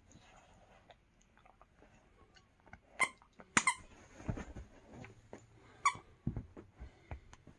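Squeaker inside a plush dinosaur dog toy squeaking a few times as a dog bites at it, the first about three seconds in and the last about six seconds in. Soft mouthing and dull thumps of the dog working the toy come between the squeaks.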